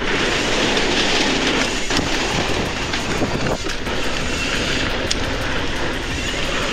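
Mountain bike ride on a dirt trail: wind buffeting the camera microphone and the rush of tyres over the ground, with many small clicks and rattles throughout.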